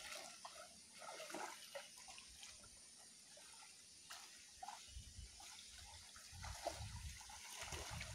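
Faint sloshing and small splashes of shallow, muddy water as people wade through it on foot. A low rumble comes in about five seconds in and again near the end.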